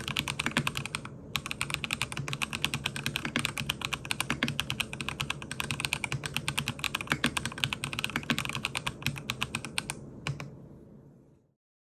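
Mechanical keyboard typing on a MACHENIKE K500F fitted with factory-lubed Haimu Gray Jade tactile switches, which have dual-stage springs, POM stems and nylon/PC housings. Fast, continuous keystrokes with a brief pause about a second in. The typing stops about ten seconds in and the sound fades out.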